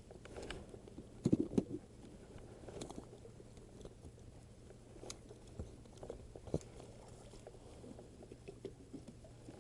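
Irregular light taps and knocks over a low steady hum, with a cluster of louder knocks about a second in.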